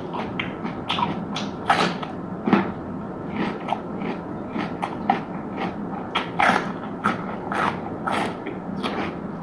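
Close-miked eating: irregular crisp bites and crunchy chewing, several sharp crunches a second.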